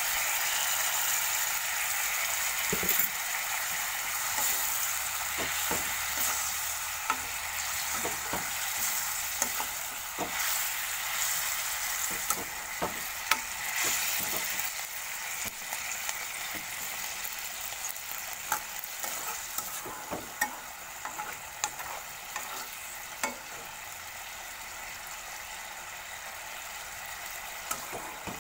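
Rohu fish curry sizzling in a wok, a steady hiss that slowly dies down after a little water has gone in, while a steel spoon stirs it, clicking and scraping against the pan now and then.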